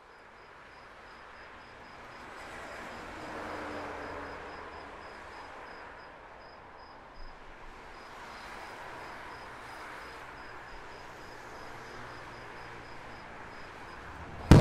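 Distant city traffic hum, swelling a little about three to four seconds in, with a cricket chirping steadily, a high pulsing note about three times a second. A sudden loud firework bang comes right at the end.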